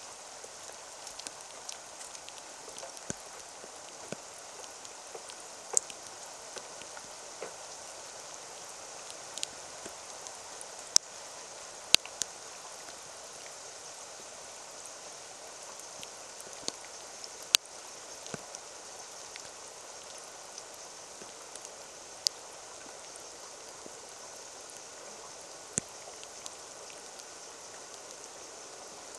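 Steady rain falling into a shallow puddle: a constant even hiss with scattered sharp ticks of single drops landing close by, a handful of them much louder than the rest.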